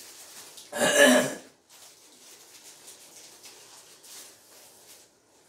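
A person clears their throat once, loudly, about a second in. Faint rustling of a paper food wrapper follows.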